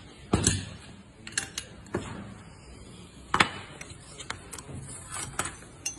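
Metal clicks and clunks from a hand pipe bender and copper pipe being worked through a 45-degree bend and handled: a string of separate sharp knocks, the loudest about half a second in and again past the three-second mark.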